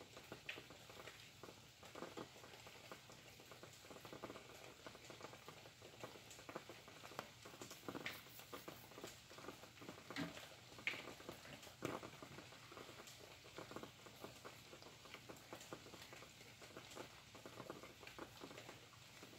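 Faint rain pattering: irregular drops tapping and dripping, with a few louder drops about halfway through.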